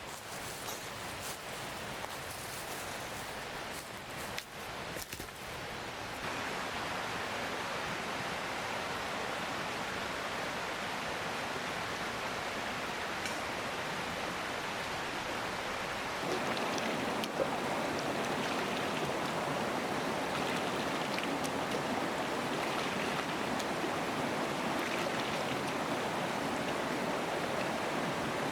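Food sizzling in hot sesame oil in a pan, a steady hiss that gets louder at about six seconds and again at about sixteen seconds.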